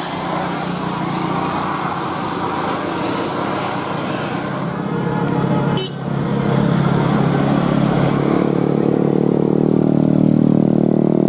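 Bus engine and road noise, then after a sharp click about six seconds in, a loud, steady chord from a bus telolet horn, the multi-tone musical air horn. More notes join near the end.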